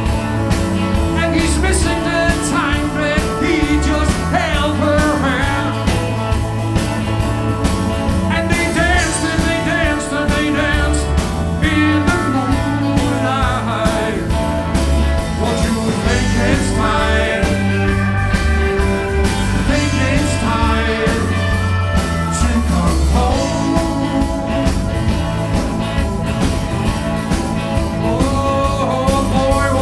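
A live rock band playing, with a man singing lead over electric guitars and a bass guitar.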